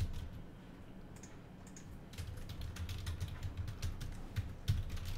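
Typing on a computer keyboard: quick key clicks, sparse for the first couple of seconds, then a steady run of typing.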